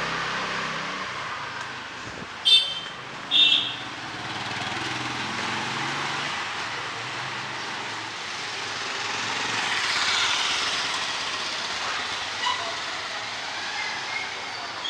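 Wet street in the rain: a steady hiss of rain and tyres on wet pavement, with a vehicle horn beeping twice, about two and a half and three and a half seconds in, and a vehicle passing by around ten seconds in.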